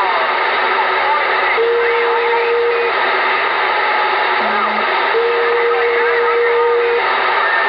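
CB radio receiver on lower sideband hissing with band noise during skip conditions, with faint garbled distant voices warbling through it. A steady whistle tone sounds twice, once for about a second and once for nearly two.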